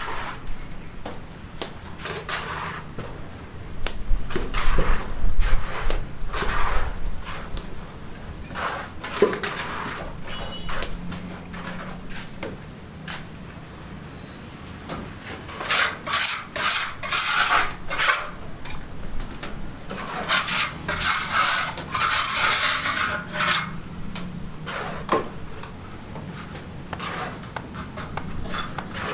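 Repeated rough scraping or rubbing strokes, coming in irregular runs. The loudest are two runs of quick strokes in the second half.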